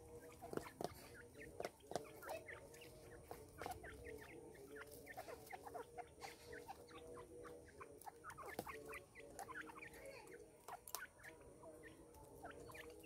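Grey francolins giving many soft, short chirping and clucking calls, irregular and scattered throughout, over a faint steady hum.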